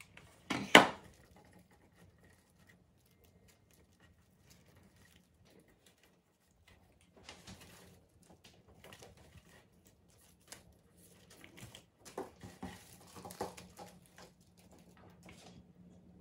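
A single sharp knock about a second in. After a quiet stretch come rustling and light crinkling as artificial flower and fern sprays are picked up and worked into a grapevine wreath.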